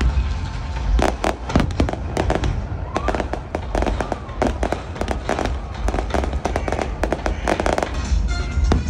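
Fireworks going off in a rapid, irregular string of bangs and crackles, starting about a second in, over music.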